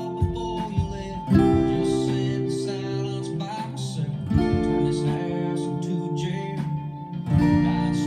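Acoustic guitar played solo, chords ringing with picked notes between, a new chord struck about every three seconds.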